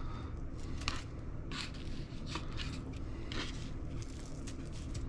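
Fingers handling raw fish fillets on a foam plate, turning and pressing them in seasoning: soft, irregular rubbing and scraping sounds several times over a steady low hum.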